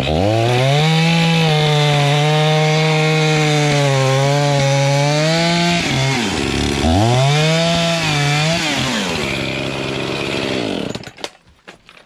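Two-stroke chainsaw at full throttle cutting through stacked sawmill slab cutoffs, its pitch sagging a little under load. It drops off about six seconds in, revs up again for a shorter second cut, then winds down near the end.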